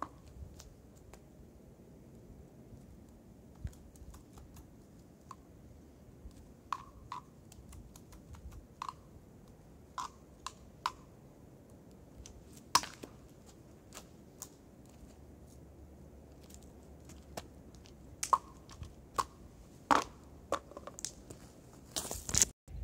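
Scattered sharp clicks and taps from two-diabolo play: the diabolos knocking against the hand sticks and string, a few louder knocks among them. Near the end, a louder burst of knocking and rubbing as the camera is handled.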